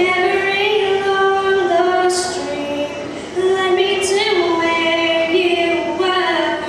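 A young girl singing a slow country ballad into a handheld microphone, holding long notes in a few phrases with short breaths between them.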